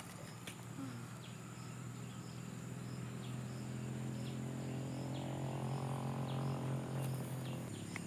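Woodland insects chirping over a steady high whine, with a short chirp repeating about twice a second. Under them a low steady hum grows louder and then stops abruptly near the end.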